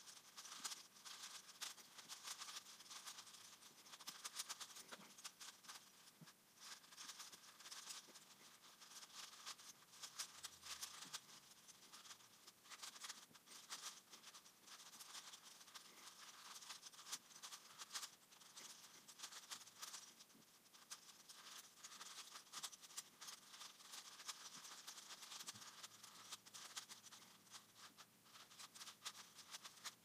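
Faint, rapid clicking and rattling of the plastic layers of a 5x5 Rubik's cube being turned, a dense run of clicks without pause, sped up tenfold.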